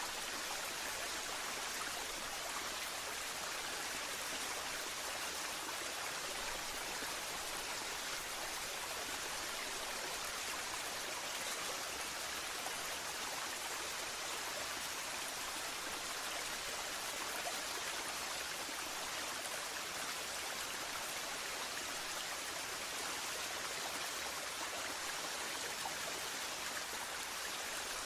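Waterfall: a steady, unbroken rush of falling water, bright and hissy with little deep rumble.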